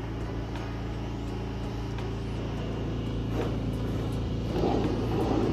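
Pressure washer running steadily, a constant motor hum under the noise of the spray, getting a little louder and rougher near the end.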